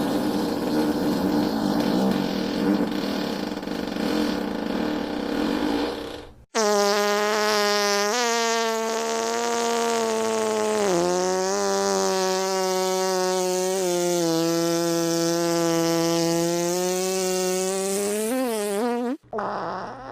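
Farting sound effect: a long buzzy fart for about six and a half seconds, then, after a brief break, a long drawn-out fart on a steady pitch with small wobbles, cutting off about a second before the end.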